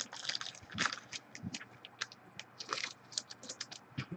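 Football trading cards being handled: a quick run of light clicks, taps and papery rustles as cards are flipped through and slid against each other.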